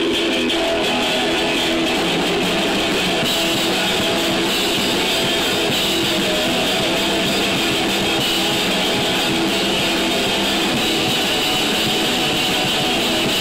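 Rock band playing live, loud and steady, with strummed electric guitar to the fore.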